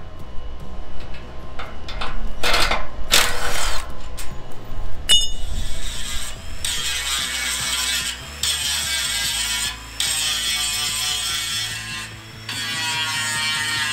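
Metal clinks and knocks from parts being worked off a rusty steel truck chassis, then, about five seconds in, a power tool running steadily on the metal frame, stopping briefly several times.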